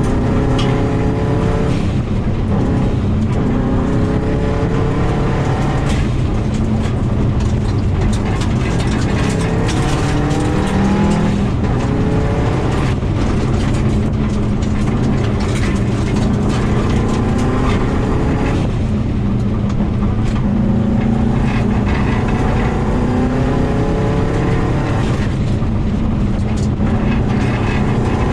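2000 Subaru WRX's turbocharged flat-four engine heard from inside the car at full rally pace, its pitch rising again and again through the gears with brief drops at shifts and lifts. A continuous rumble of tyres on gravel runs underneath.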